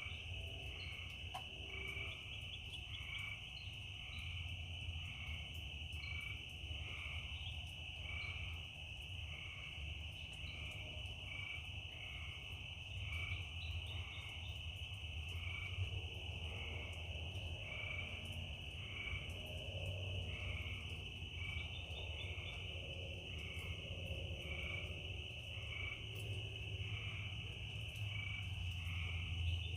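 Night chorus of crickets and frogs: a steady high cricket trill, with short calls repeating about once a second and a low rumble underneath.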